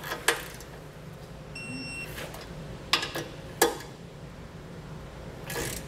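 Digital torque wrench tightening bolts: a few sharp metal clicks and knocks from the wrench and socket, and about two seconds in a short electronic beep from the wrench signalling that the set torque has been reached, over a steady low hum.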